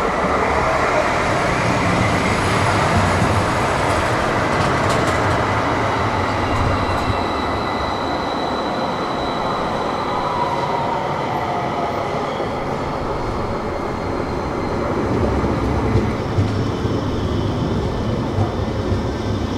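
Tram running along its rails: a steady rumbling noise, with thin high whining tones held over much of it.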